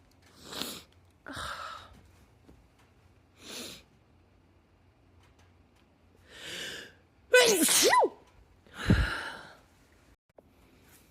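A woman sneezing in a sneezing fit: a few quieter bursts in the first seconds, then a loud, voiced sneeze about seven seconds in and another sneeze about a second later.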